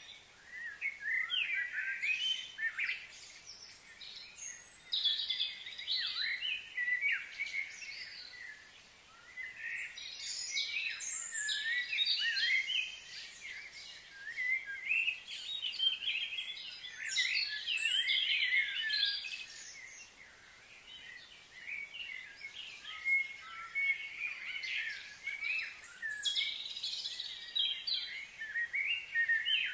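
Several birds chirping and calling at once, a dense chatter of short, quick notes that comes in busy spells with brief lulls, over a steady high-pitched hiss.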